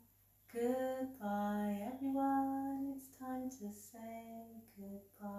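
A woman singing a simple children's goodbye song unaccompanied, in short phrases of held notes.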